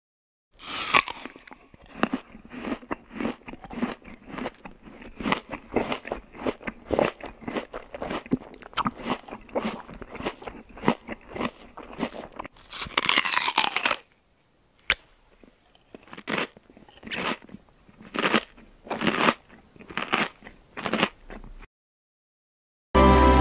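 A toddler chewing and biting on a disposable medical face mask: close, irregular crunching and crinkling, settling into slower, evenly spaced chews near the end.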